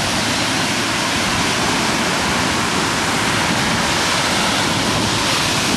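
Ocean surf breaking on a sandy beach: a steady, loud rush of waves.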